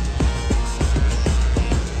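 Outro background music with a heavy bass and a fast, steady beat.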